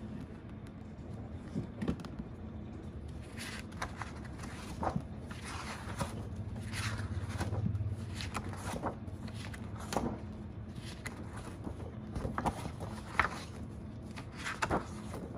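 Irregular light clicks and scrapes of small objects being handled, over a low steady hum of room noise.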